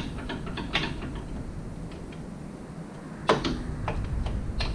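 Ratchet wrench clicking in short runs as a hub assembly bolt is backed out of the steering knuckle, with one sharper metal clank about three seconds in.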